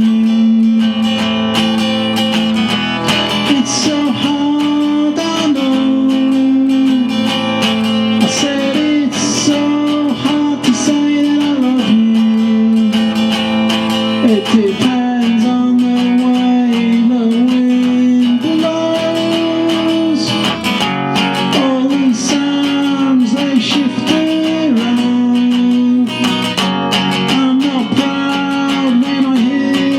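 Acoustic guitar strummed in a slow, bluesy song, with a melody of long held notes that step up and down over the chords.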